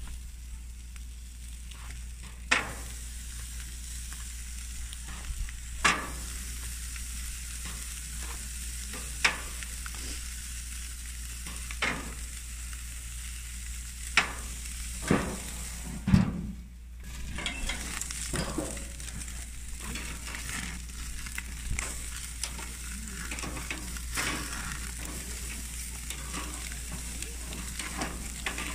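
Pork chops being seared on a very hot barbecue grill. Each chop hits the grates with a sharp sizzle, several times a few seconds apart. From about halfway through, the sizzle runs on steadily with dense crackling.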